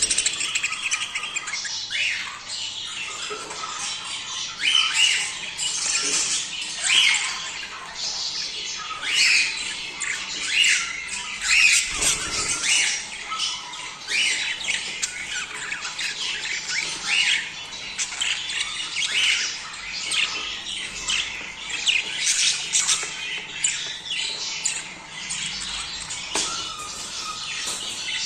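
A flock of budgerigars chattering, with constant overlapping warbles and chirps and frequent harsh squawks standing out. This is breeding-season chatter of the kind played to pet budgies to encourage them to mate.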